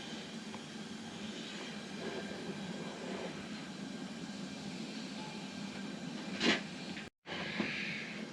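Steady hum of a fan or blower running, with one short, sharp noise about six and a half seconds in.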